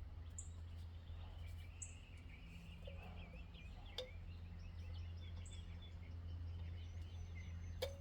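Faint background: a steady low hum with small bird chirps scattered through it, and two light clicks, about four seconds in and near the end.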